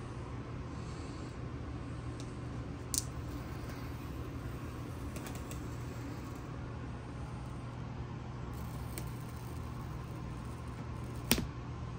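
Handling of a cardboard product box as its paper tear strip is pulled: two sharp clicks, about three seconds in and near the end, and a few fainter ticks over a steady low background hum.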